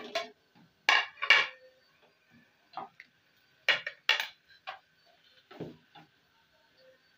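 A kitchen knife knocking on a hard countertop, about seven sharp, irregular knocks, as a frozen slab of chicken in a plastic bag is cut and broken into pieces.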